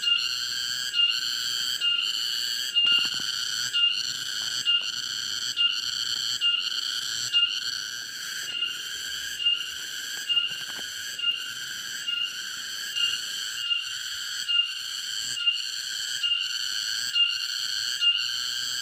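A high, whistle-like tone with overtones, repeating a little more than once a second, each note starting sharply: a looping background sound track laid over the video.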